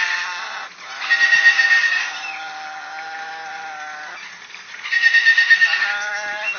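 Parrot singing in long, wavering, opera-like notes: a loud high passage about a second in, lower held notes after it, and another loud high passage about five seconds in.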